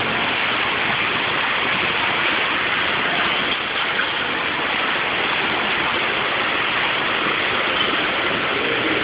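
Steady rush of falling water, constant and even with no breaks.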